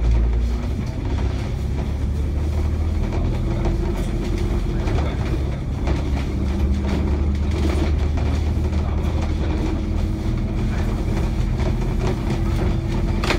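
Inside an ADL Enviro500 MMC double-decker bus cruising along: a steady low engine and road drone, with a few light knocks from the body.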